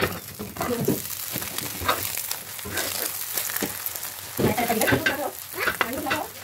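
Omelette sizzling in butter in a hot pan while a metal spatula chops and scrapes it into pieces against the pan bottom, with a louder stretch a little past the middle.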